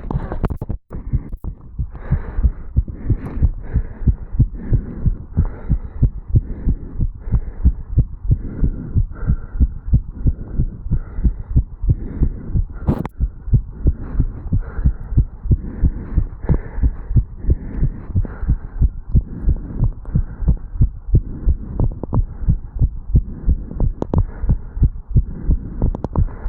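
A fast human heartbeat recorded at the chest over the mitral valve area, with even, quick thumps about two a second, raised by jogging up stairs.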